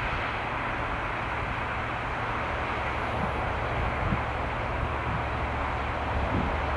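Distant EMD Class 66 diesel locomotive and its container train approaching: a steady, even rumble with a low drone underneath. Wind buffets the microphone near the end.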